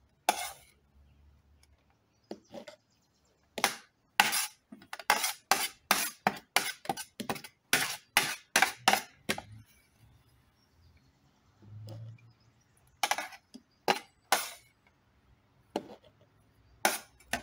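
A metal spoon clinking and tapping against the rim of a plastic jar as grated coconut is spooned in and knocked off the spoon. A quick run of sharp taps, about three a second, lasts some six seconds, followed by a few more taps in small groups.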